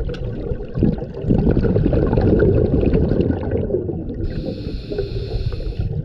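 Scuba regulator breathing underwater: a loud crackling rush of exhaled bubbles in the first half, then a steady high hiss of an inhalation through the regulator from about four seconds in.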